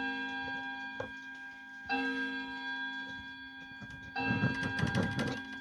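Antique German Vienna wall clock's gong sounding twice, about two seconds apart, each stroke a low ringing tone with several overtones that fades away.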